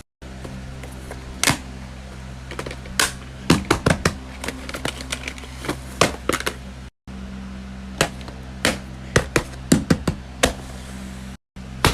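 Irregular sharp clicks and taps of small plastic fidget toys being handled, over a steady low hum. The sound cuts out abruptly twice.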